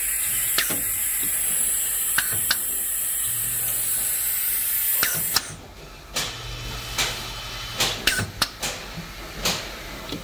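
Compressed-air hiss from the vacuum generator of a pneumatic label applicator, holding steady for about five seconds and then cutting off suddenly. After it comes a run of sharp clicks and clacks as the pneumatic applicator head moves, with a low hum in the middle.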